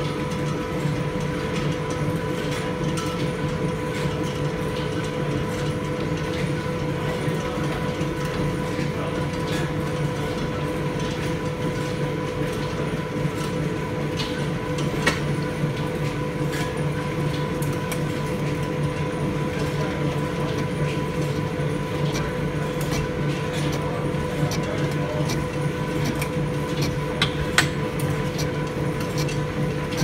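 1904 lathe running with a four-jaw chuck spinning: a steady mechanical hum and rattle from its drive and gearing, with a few sharp clicks, the loudest near the end.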